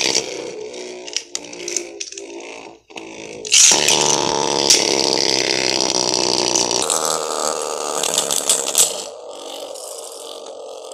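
Beyblade Burst spinning tops whirring and rattling on a plastic stadium floor. A second top lands about three and a half seconds in and the noise gets louder, with a few sharp clicks as the tops strike each other. The noise eases off about nine seconds in while both keep spinning.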